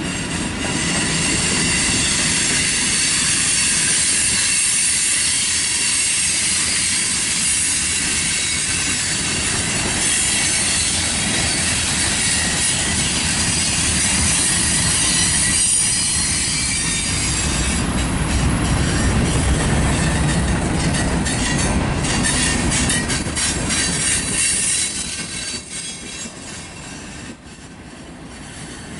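Freight cars of a mixed manifest train rolling past, their steel wheels rumbling on the rails with a high wheel squeal over it for roughly the first half. Later the low rumble gets heavier, with a few clanks, then eases off near the end.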